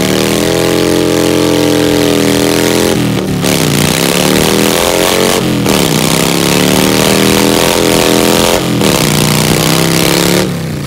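Cruiser motorcycle doing a burnout: the engine is held at high revs while the rear tyre spins and smokes on the pavement. The revs sag and climb back three times, then drop away near the end as the throttle is let off.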